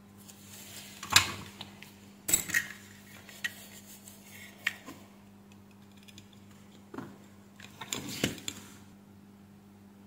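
Light metallic clicks and short scrapes from small hand tools, a flat blade and a soldering iron, being worked and set against a circuit board, in scattered clusters with the loudest about a second in and around eight seconds. A steady low hum runs underneath.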